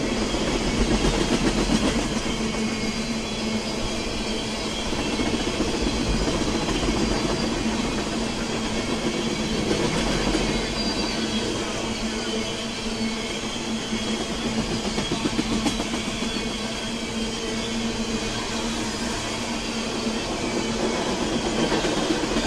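Freight train of oil tank cars rolling past, a steady rolling noise with rapid clicking from the wheels on the rails.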